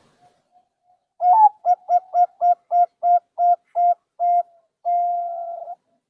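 Zebra dove (perkutut) singing its coo song. After a few faint soft notes it gives an opening coo that bends up in pitch, then about nine short coos at roughly three a second, slowing slightly, and closes with one long held coo. This is the song pattern its keeper counts as good enough for perkutut song contests.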